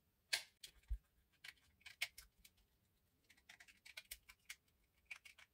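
Faint, scattered clicks and taps of a small screwdriver and plastic parts as screws are taken out of a quadcopter's battery housing, with a run of quicker clicks a little past the middle.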